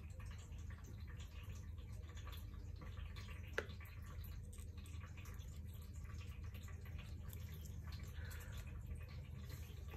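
Quiet handling of a soldering iron and battery pack: faint scattered ticks and one sharp click about three and a half seconds in, over a steady low hum.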